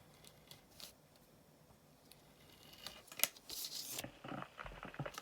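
A few faint light clicks, then about three seconds in, plastic packaging crinkling and tearing as it is handled and opened.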